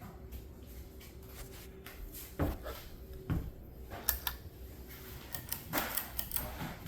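A 52-inch ceiling fan's motor humming with a steady tone; the uploader suspects a bad capacitor. Several sharp knocks and clicks sound over it, a few single ones and then a quick cluster near the end.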